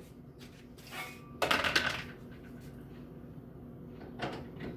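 Knocks and a short clatter from a microwave oven being handled during disassembly. The main clatter comes about a second and a half in and a lighter knock near the end.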